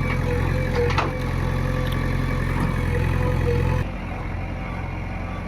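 JCB excavator's diesel engine running steadily, with a few sharp clanks about a second in. Just under four seconds in the engine sound drops suddenly to a quieter, lower level.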